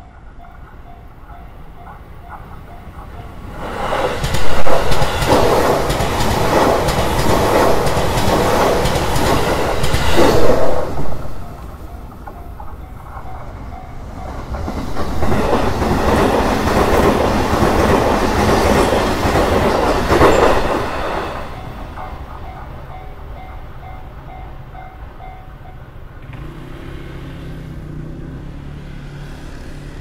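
A Japanese level-crossing alarm rings steadily. Then two JR Nambu Line E233 series electric trains pass one after the other, each a loud rush of wheels on rails lasting about seven seconds, the first about four seconds in and the second about fifteen seconds in. The alarm is heard again after the second train and stops, and near the end a small motor scooter engine revs as traffic moves off.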